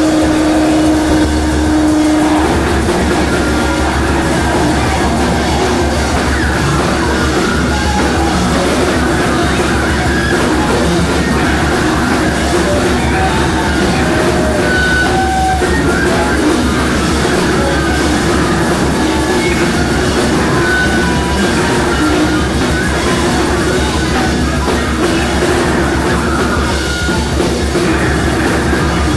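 Loud, dense free-improvised noise music from two electric guitars and drums: a continuous wall of sound with scattered short squealing notes and no steady beat. A held steady tone cuts off about two seconds in.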